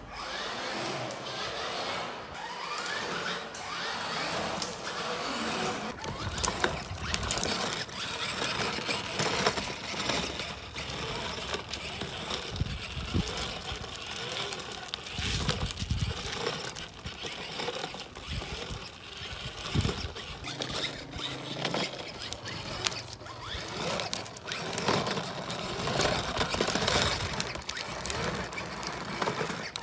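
A child's ride-on toy motorbike running, its small motor whirring, with scattered clicks and knocks.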